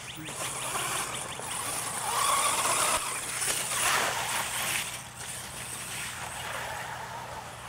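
Large radio-controlled monster truck driving across a dirt track and ploughing through a muddy puddle, throwing up a spray of water and mud. The splashing is loudest from about two to five seconds in, then dies down as the truck drives on.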